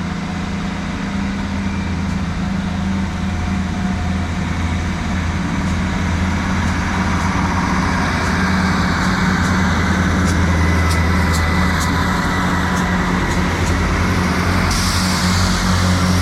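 Class 158 diesel multiple unit running with a steady low engine hum, growing slowly louder as it passes. In the second half comes a run of sharp clicks, with a hiss setting in near the end.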